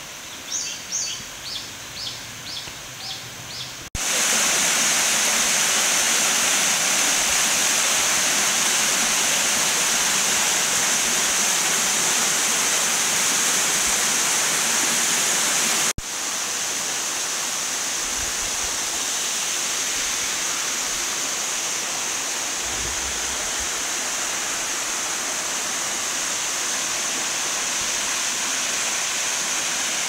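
Waterfall pouring into a pool: a steady rushing of falling water that starts abruptly about four seconds in and drops slightly in level at a cut near the middle. Before it, over a quieter background, a run of about six short high chirps.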